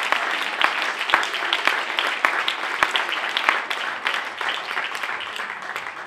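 Audience applauding, a dense patter of many hands clapping that begins to thin out and fade in the last couple of seconds.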